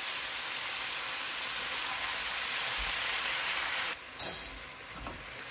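Diced chicken and vegetables sizzling in a frying pan. About four seconds in, the sizzle drops off abruptly, followed by a short clink.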